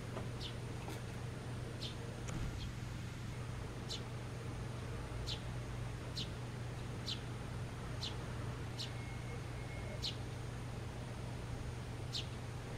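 Blue rock thrush giving short, high, thin call notes, each falling in pitch, about ten of them roughly a second apart, with a longer gap before the last. A steady low hum runs underneath.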